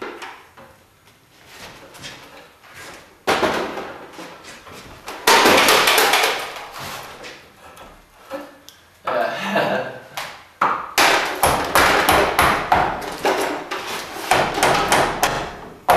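A wooden batten being worked by hand: runs of rapid, rough knocking and scraping strokes, loudest from about five seconds in and again over the last five seconds.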